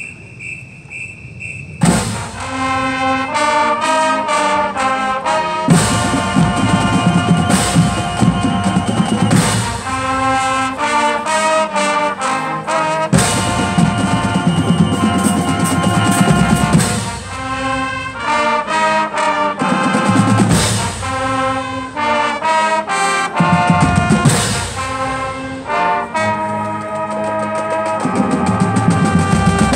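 A marching band starts playing about two seconds in: full brass chords and fast passages with drum and percussion hits, some held chords, and short breaks between phrases.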